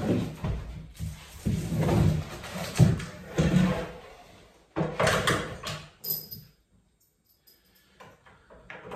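White panels of an IKEA BRIMNES bed frame being handled on the floor: knocks, thuds and scraping for the first six seconds or so, then a few light clicks near the end.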